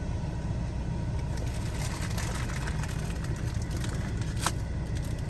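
A car's engine running with a steady low rumble, with one brief click about four and a half seconds in.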